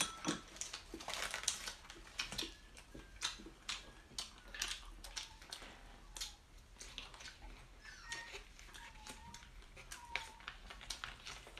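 Quiet crunching and clicking of fresh lettuce being eaten, with a puppy whining a few times, short rising and falling whimpers, in the last few seconds.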